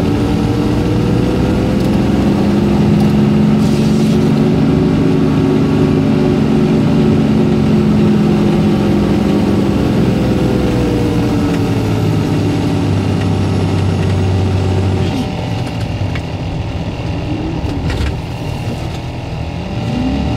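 A vehicle engine running steadily, its pitch swelling and easing over the first several seconds. Near the end it is revved up and down in short rises and falls.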